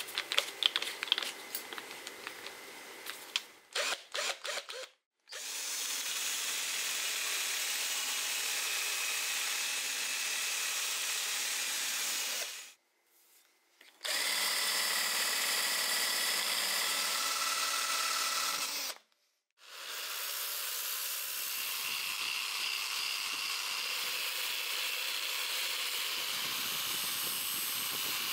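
Handheld rotary tool with a wire cup brush running, scrubbing rust off the steel blade of an antique cleaver: a steady whirring scrub heard in three long stretches, broken twice by brief cuts. The first few seconds hold irregular clicks and rattles as the brush is handled, before the tool starts.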